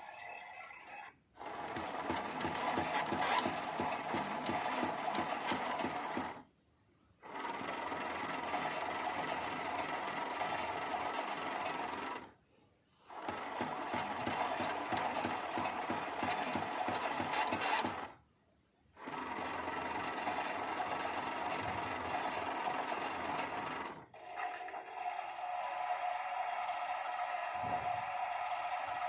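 Toy Miele washing machine running its wash cycle: the motor turns the drum in spells of about five seconds with short stops between, with a steadier, more even hum at the start and again after the fourth stop.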